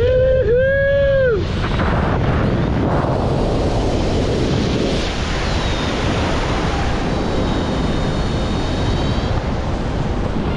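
Steady, loud rush of a waterfall, with a person's drawn-out two-part 'whoo' yell over it for the first second and a half.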